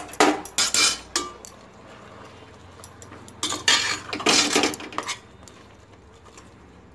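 A metal spoon clinking and scraping against the inside of a pressure cooker pot while stirring drumstick leaves into cooked mung dal. It comes in two bouts, one at the start and another from about three and a half seconds in, with a quieter gap between.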